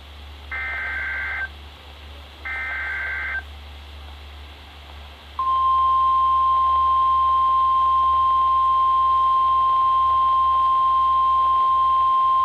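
NOAA Weather Radio Emergency Alert System signals: two short buzzy SAME digital header bursts of about a second each, a second apart. Then, from about five seconds in, the steady 1050 Hz warning alarm tone, one loud unbroken pitch, announcing a warning-level alert, here a severe thunderstorm warning.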